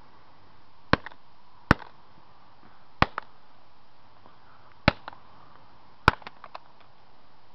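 Five sharp blows striking an old LG cell phone, about a second or two apart, some followed by small clicks of rattling pieces.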